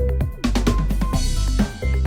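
Background music with a steady electronic drum beat and deep bass.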